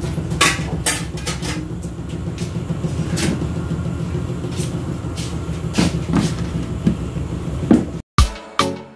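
Bathroom being scrubbed and washed: scattered knocks and clatters over a steady low mechanical rumble. About a second before the end it cuts abruptly to music.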